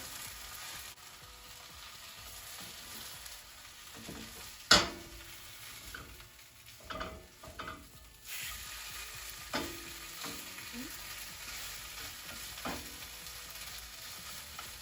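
A plant-based egg omelette sizzling in oil in a non-stick frying pan as it is folded over with a spatula. The spatula knocks and scrapes against the pan a few times, with one sharp knock about a third of the way in as the loudest sound.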